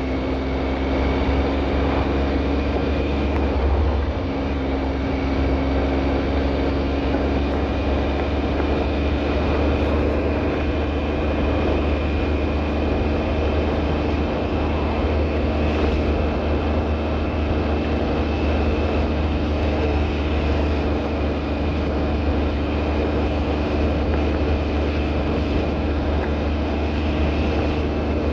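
Steady mechanical drone: a constant low rumble with a whine whose pitch creeps slowly upward, running without a break.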